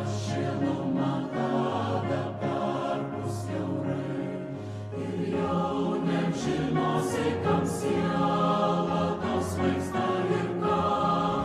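A choir singing, with low notes held for about a second at a time beneath the voices.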